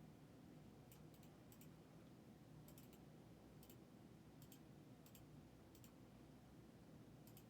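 Near silence with faint, irregular clicks, about one or two a second.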